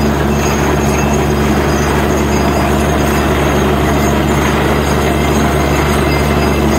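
Borewell drilling rig running steadily under load: a loud, unbroken engine and compressor drone with a constant rushing noise as the air blast carries grey slurry and cuttings out of the hole.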